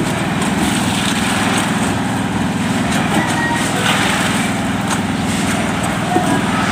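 A small engine running steadily at an even pitch, the kind of engine that drives the machinery at a concrete pour.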